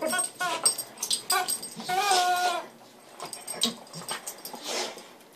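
A purple toy chicken squealing in short pitched squawks as a dog bites and squeezes it, with one longer squeal about two seconds in. Scattered clicks and rustles of the dog's jaws on the toy follow.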